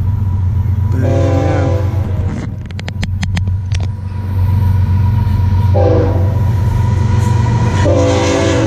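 Air horn of an approaching Florida East Coast GE ES44C4 diesel locomotive, sounding three blasts: a long one about a second in, a short one near six seconds, and a third starting near the end. A steady low engine rumble runs underneath, and a quick run of clicks falls between the first two blasts.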